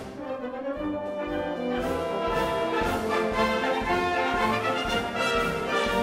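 Orchestral background music led by brass, playing long held notes, with a beat coming back in near the end.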